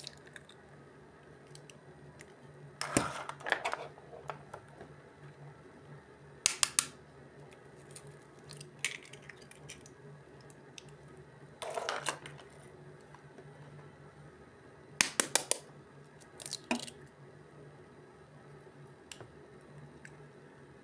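Eggshells being cracked and broken open by hand over a cold frying pan, in short clusters of sharp cracks every few seconds, over a faint low hum.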